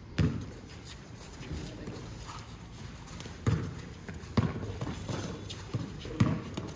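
A basketball bouncing on a concrete court: one bounce at the start, then dribbles about a second apart through the second half, each a short hollow thump.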